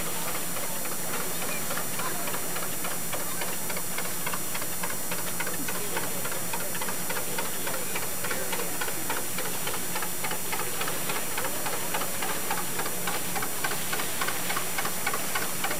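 Slow-running engine of a small wooden fishing boat, a steady, regular knocking beat over a low hum, becoming more distinct toward the end.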